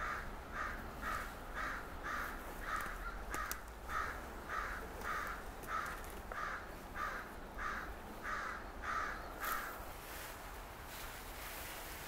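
A bird calling over and over in an even series, about two short calls a second, stopping after some nine seconds.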